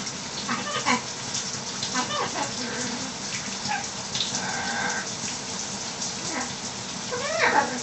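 A pet macaw making short, scattered vocal sounds over the steady hiss of running shower water, with its loudest call, a quick sweeping squawk, near the end.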